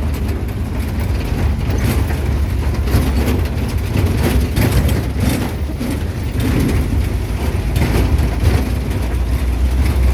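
A jeep riding along, heard from on board: a steady low engine and road rumble with frequent short knocks and rattles.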